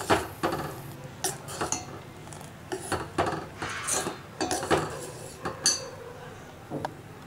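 Steel spoon stirring thick jaggery syrup in a stainless steel pot, clinking and scraping against the metal sides and bottom in irregular strokes.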